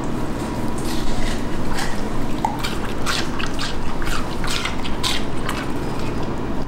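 Beagle chewing a piece of fresh watermelon: a series of wet, crisp crunches, about two a second.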